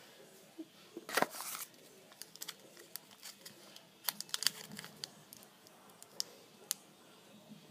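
Mega Sour Gum sweet wrapper crinkling and crackling as it is handled: a burst of rustling about a second in, then scattered sharp crackles.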